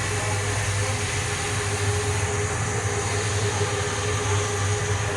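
A machine running steadily: a constant low hum with a few steady higher tones over an even rushing noise, unchanging throughout.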